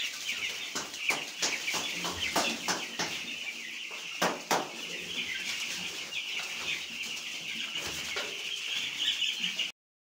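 A flock of young chicks peeping continuously, a dense high chatter of many birds at once, with scattered short clicks and knocks among them. The sound cuts off abruptly near the end.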